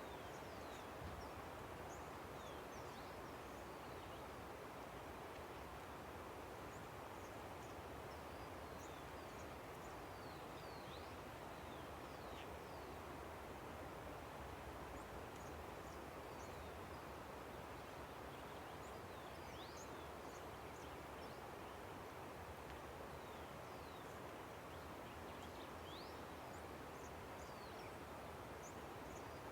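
Steady rushing of a river, with many short, high bird chirps that sweep down in pitch, scattered in small clusters over it.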